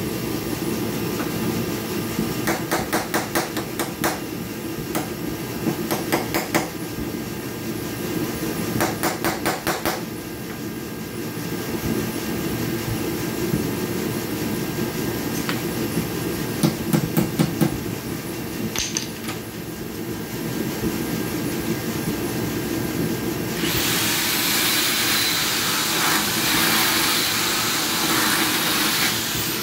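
Short bursts of rapid clicking and a few knocks, then, about three-quarters of the way through, a corded electric drill runs steadily for about six seconds, slowly widening a rivnut hole in a car's sheet-metal quarter panel to a quarter inch.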